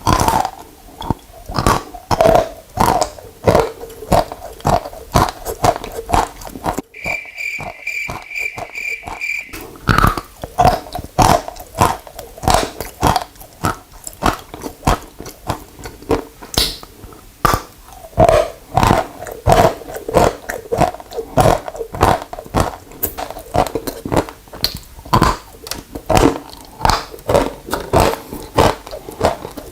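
Close-miked mukbang eating: repeated hard crunching bites and chews, about two a second. A short run of five quick high beeps cuts in about seven seconds in.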